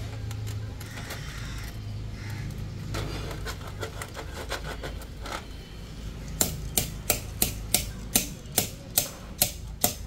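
Sharp metallic taps, about three a second, start about six seconds in, likely tools striking metal during truck wheel work. Before them there are only faint scattered clicks over a low steady hum.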